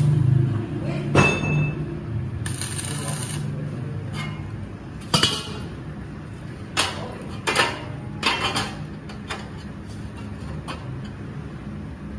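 Arc welding of a steel rim band crackling in short tack welds over the first few seconds, then a series of sharp metallic clinks as steel rim bands are handled and set in place.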